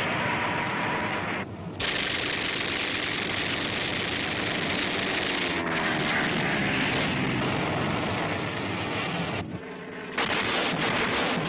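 Propeller fighter plane's engine running loud as an animated sound effect, its pitch sweeping around the middle, dropping out briefly twice. Near the end, a quick run of bangs from gunfire or flak bursts.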